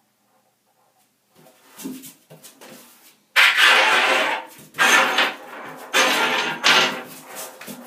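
Doberman puppy pawing at a metal bathtub drain plug: claws scrape the tub floor and the plug clatters against it. It starts with small scratches, then comes in loud bursts of about a second each, several in a row, from a little under halfway in.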